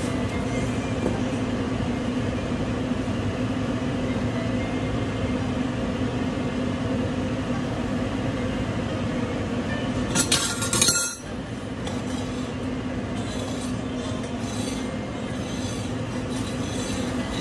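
Large stainless steel pot of water at a rolling boil, giving a steady rushing hum. About ten seconds in, a metal ladle clinks sharply against the pot for about a second.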